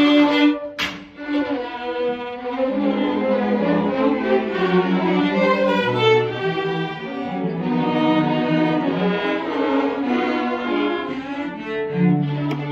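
School string orchestra playing, with a violin bowed close by over lower strings sounding beneath it. There is a short sharp break in the music about a second in.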